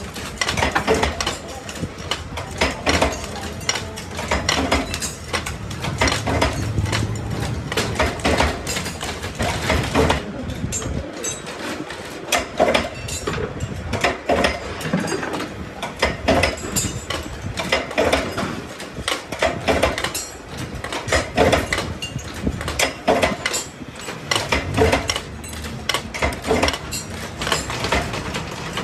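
Irregular clinks and taps of metal on metal from hand work on stainless-steel cage parts, a few sharp knocks a second with brief ringing.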